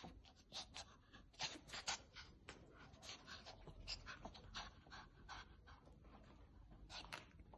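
Pomeranian panting softly in quick, uneven breathy puffs.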